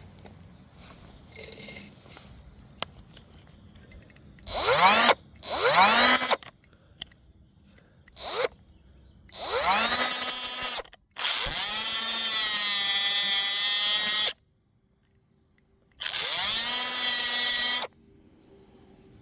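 Handheld power cutting tool triggered in short bursts, each rising in pitch as the motor spins up, then run steadily for two longer cuts of about two to three seconds. It is cutting a slot into a stripped bolt head so a screwdriver can turn it out.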